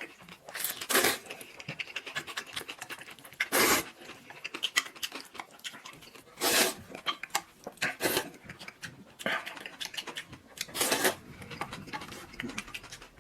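A person slurping rice noodles in about five short, loud slurps, with chewing and small utensil clicks between them.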